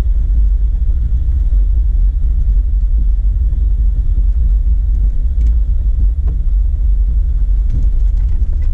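Jeep Wrangler driving on a dirt trail, heard from inside the cab: a steady low rumble of engine and tyres, with a few light clicks and rattles.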